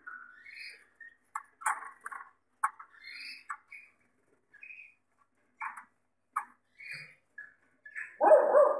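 Gloster canaries giving short, separate chirps and call notes rather than continuous song, with a louder, harsher call near the end.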